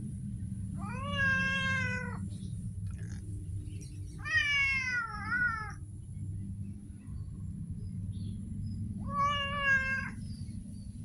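A cat meowing three times, each a drawn-out call a few seconds apart; the second is the longest and breaks into two parts. A steady low hum runs underneath.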